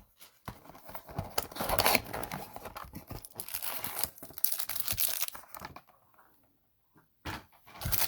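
A hanger box of trading cards being ripped open: tearing and crinkling of the packaging in irregular bursts, stopping for about a second and a half near the end before one more short rip.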